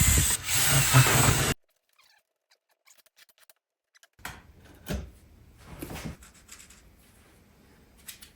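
Loud noisy sound that cuts off abruptly about a second and a half in, then faint clicks and scraping from ceramic subway tiles being worked with a manual tile cutter.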